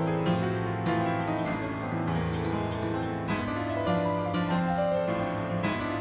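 Upright piano played solo: dense, fast-moving notes with sharp attacks over held low bass notes.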